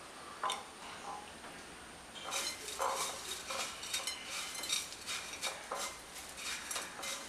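Crushed cornflakes crackling and rustling as a batter-dipped plantain strip is pressed and rolled in them by hand, a rapid run of crisp crackles starting about two seconds in. Before that, a few light clicks of a fork against a ceramic bowl of batter.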